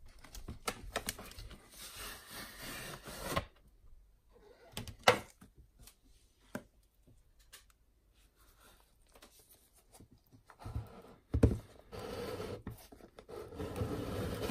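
Cardboard watch boxes handled with gloved hands: a long slide and rub as the inner box comes out of its outer carton, a few sharp knocks and clicks as the boxes are set down and turned, and more rubbing near the end as the cream box is gripped and its lid worked.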